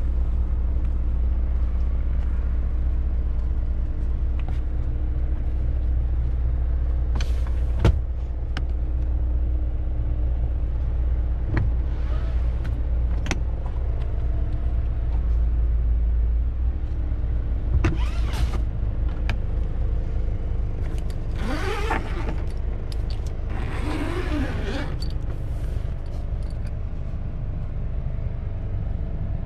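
A 2024 Mazda CX-5 2.5 S Premium with its 2.5-litre four-cylinder engine being driven: a steady low rumble of engine and road noise, with a few sharp clicks and two brief scraping noises about two-thirds of the way through.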